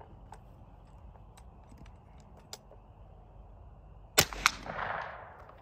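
A single shot from the .22 barrel of a TPS Arms M6 takedown survival rifle about four seconds in: a sharp crack that rings out and fades over about a second. A few faint clicks come before it. A second sharp crack follows about a third of a second after the shot, which is the bullet being heard hitting the target.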